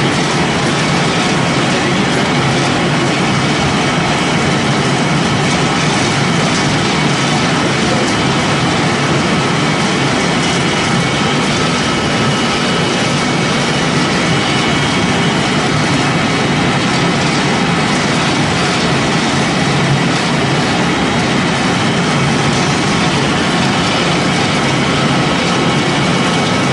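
Biomass pellet mill and its pellet conveyor running: a loud, steady mechanical noise with a few faint, high steady tones in it.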